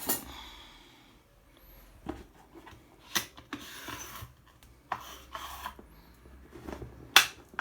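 Handling of a Makute pneumatic nail gun's magazine as a strip of nails is locked in: rubbing and scraping of metal and plastic with a few sharp clicks, the loudest about seven seconds in.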